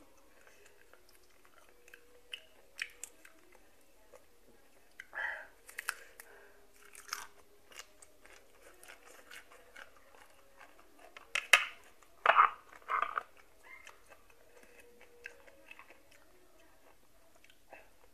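Close-up chewing and crisp crunching of raw water morning glory greens, in scattered bites. The loudest crunches come in a cluster about twelve seconds in.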